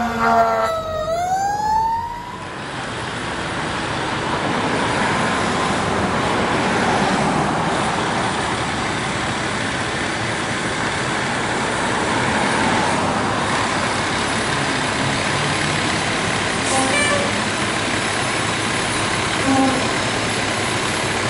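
Fire engine siren wailing, its pitch falling and then sweeping quickly back up. About two seconds in it cuts to a steady noisy rumble of a fire truck's engine as an aerial ladder truck pulls out of its station.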